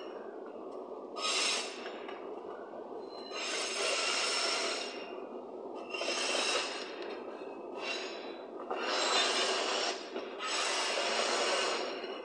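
Freight train of hopper wagons rolling past: a steady rumble from the wheels on the rails, broken every one to two seconds by a roughly one-second burst of harsh, rasping wheel noise.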